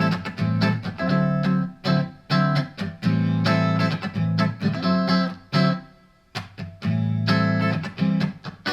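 Fender Modern Player Telecaster electric guitar played through a Vox VT20X amp on its front single-coil and middle pickups together, chords picked and left to ring in a mellow, spanky tone. The playing pauses briefly about six seconds in.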